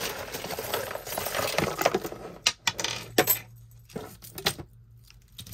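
Metal costume jewelry clinking and jangling as pieces are handled and sorted. After about two seconds of rattling come several separate sharp clicks as pieces are set down.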